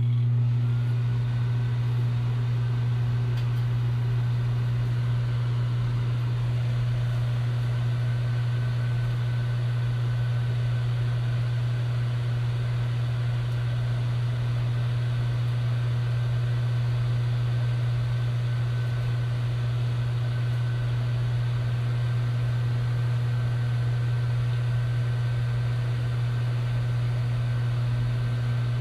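Microwave oven running: a steady, loud low hum with a faint high whine above it. It stops right at the end.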